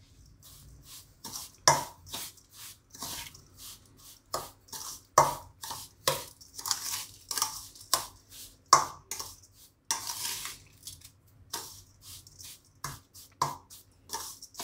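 Spoon scraping and stirring through moist methiya pickle spice mix in a stainless steel bowl, in short, irregular strokes about one to two a second, as salt is worked in.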